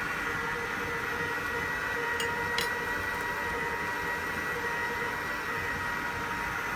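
Steady whir and hum of a kitchen fan over a soft hiss of brioche-dough pieces frying in oil at 180 °C, with two light clicks a little over two seconds in.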